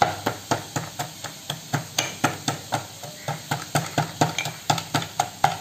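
Ginger and garlic being pounded with a pestle in a mortar: steady knocks, about four a second.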